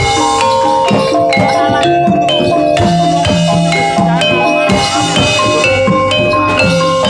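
Jaranan gamelan accompaniment: metallophones ring out a quick stepping melody over steady drum strokes.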